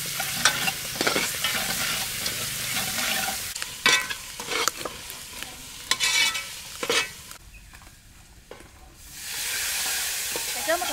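Chili curry paste, shallots and lemongrass sizzling in oil in a metal pot while a metal ladle stirs, clinking and scraping against the pot several times in the middle. The sizzle drops for a second or so about three-quarters through, then a steady hiss returns.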